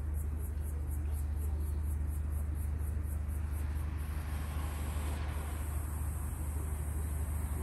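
Outdoor ambience: a steady low rumble under a high-pitched buzz that pulses about four to five times a second, then turns steady about halfway through, with a swell of hiss just after that.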